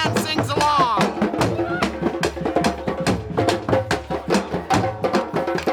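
A group of drummers playing a fast, dense rhythm on hand drums, with many sharp hits in quick succession.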